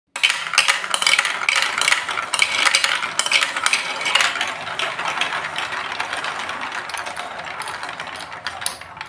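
Many glass marbles rolling and clattering down a plastic Lego Duplo block marble run, a dense run of clicks that starts suddenly and gradually gets quieter and sparser.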